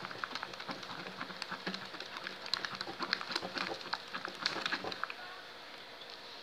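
Thick glue slime being stirred in a plastic tray as activator is worked in, giving a dense run of wet, sticky clicks and squelches over a faint steady hum; the stirring stops about five seconds in.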